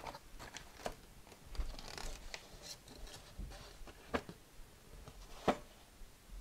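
Faint paper handling: a folded paper note lifted out of a cardboard gift box and opened, with soft rustles and a few light ticks.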